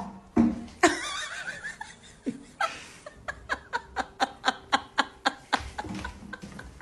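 A person laughing: a run of short, even bursts, about four a second, after a loud, wavering high cry in the first second or so.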